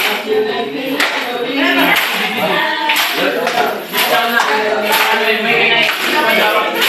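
A group of voices chanting and singing a cheer together, with clapping.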